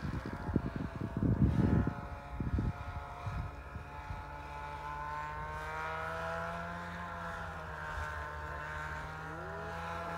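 Snowmobile engine running as the sled rides across the ice, its pitch slowly rising and falling. Wind buffets the microphone for the first couple of seconds.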